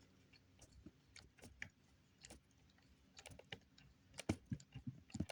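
Faint, irregular clicks and taps of small plastic RC car parts and a screw being handled during disassembly. They grow busier in the second half, with a few louder taps near the end.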